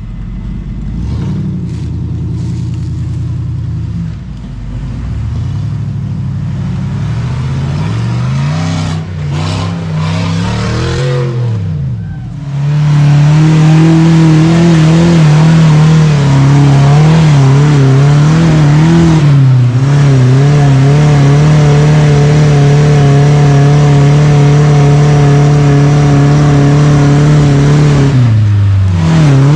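Rock-crawling buggy engine revving up and down, then held at high revs under load as the buggy climbs a steep rock ledge. The pitch wavers slightly, sags briefly near the end and comes back up.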